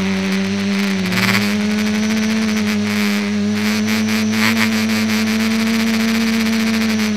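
Electric motor and propeller of a small RC aircraft running at steady throttle, a constant buzzing hum heard from a camera on board, stepping up slightly in pitch about a second in.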